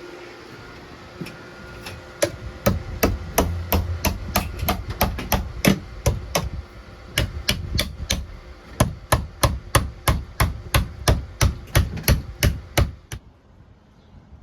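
Rapid run of hammer blows, about three a second, stopping suddenly near the end.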